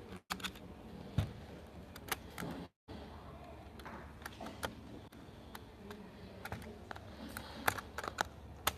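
Fingernails tapping and the plastic case of a handheld electronic bingo tablet clicking as it is picked up and handled: scattered, irregular sharp clicks. The sound cuts to silence twice, briefly, in the first three seconds.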